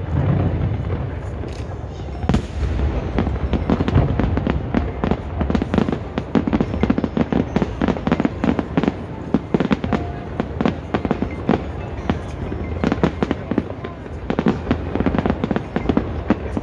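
Aerial fireworks display: deep booms of shells bursting, then dense, rapid crackling from about five seconds in.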